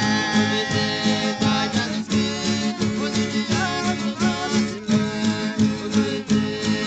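Folia de Reis folk music: strummed guitars playing a steady rhythm with other instruments.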